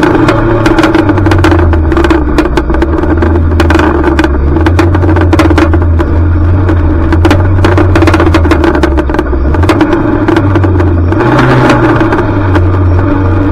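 Junior banger race car's engine running hard and loud, its revs rising briefly about eleven seconds in. Frequent sharp knocks and rattles come through over it.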